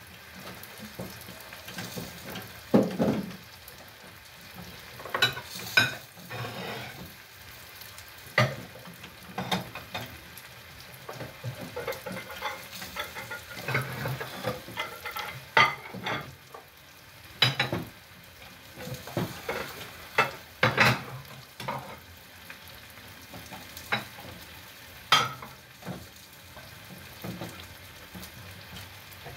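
A wooden cooking stick stirs thick ugali and presses it against the side of a steel pot, giving irregular knocks and scrapes every few seconds. A steady sizzle comes from greens frying in a pan beside it.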